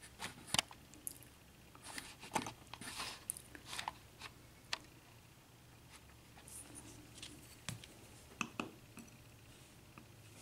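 Faint, scattered clicks and light taps, with a few brief scrapes, from handling the small parts of a disassembled euro cylinder lock.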